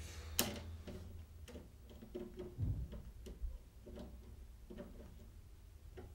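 Light, irregular clicks and small knocks from hands working on an old CRT television set, with one sharper click about half a second in, over a low steady hum.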